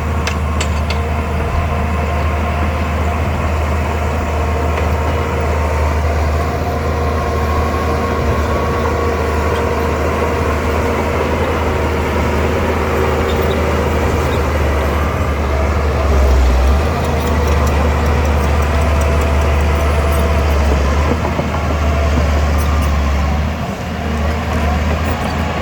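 Shantui DH17 bulldozer's diesel engine running steadily with a deep low rumble, swelling briefly about two-thirds of the way through and easing for a moment near the end.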